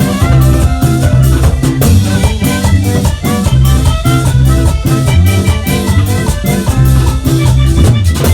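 Vallenato music: a diatonic accordion playing a melodic passage over a stepping bass line and a steady drum beat.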